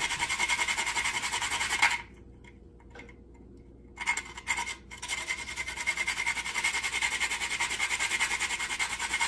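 Whole nutmeg being grated by hand: quick, even rasping strokes. The strokes stop about two seconds in and start again about four seconds in.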